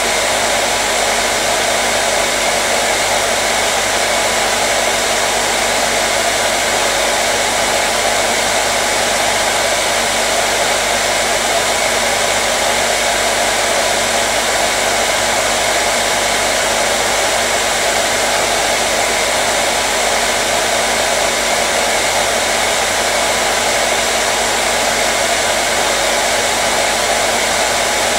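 Hair dryer running steadily, a constant even whoosh of blown air with a faint motor hum and no changes.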